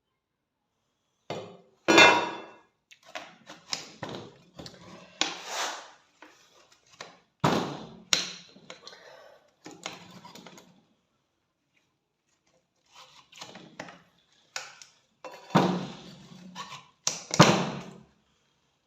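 Irregular knocks, clinks and scrapes of rusty rifle parts and hand tools being handled and tapped. They come in short clusters separated by dead silence.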